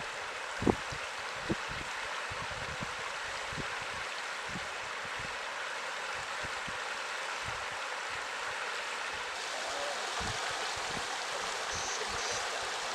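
Steady rush of flowing water, with two short thumps at about 0.7 and 1.5 seconds in.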